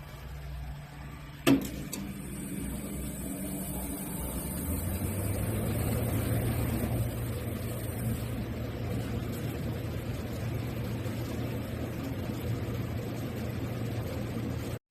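A sharp click, then a 3000 W laser machine running steadily on test. A high hiss lasts until about eight seconds in, over a low hum that grows louder from about four seconds in, and the sound cuts off suddenly at the end.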